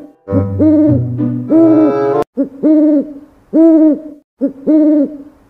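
Background music: a repeating pitched two-note figure, short then long, about once a second, over a low bass line that cuts off with a click about two seconds in, after which the figure continues alone.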